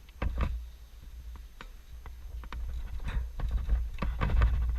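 Irregular clicks, knocks and scuffs of someone moving about on old wooden boards and ladder rungs strewn with debris. They come thickest in the last second and a half, over a low rumble.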